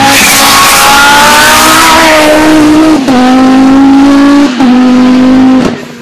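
Turbocharged Audi Quattro race car accelerating hard at full throttle, very loud. The engine note climbs in each gear and drops with an upshift about three seconds in, again about a second and a half later, and once more near the end as it pulls away and fades.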